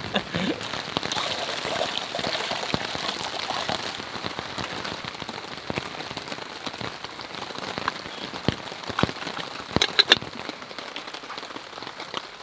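Steady rain falling, a dense hiss of drops with individual drops ticking, and a few sharper clicks about ten seconds in.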